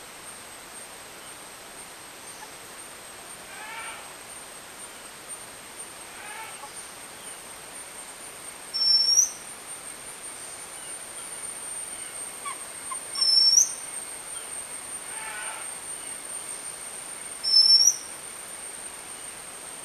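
Oriental magpie robin giving three loud, short rising whistled calls, about four seconds apart, in the second half. A steady thin high-pitched tone runs underneath, and fainter calls of other birds come in between.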